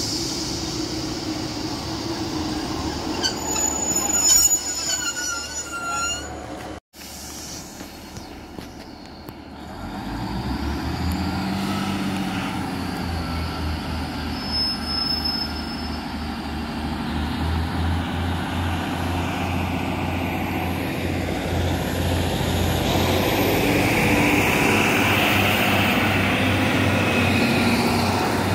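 Northern Class 155 diesel multiple unit squealing as it slows into the platform in the first few seconds. After a brief dropout, its underfloor diesel engines throb steadily, then grow louder as the train pulls away.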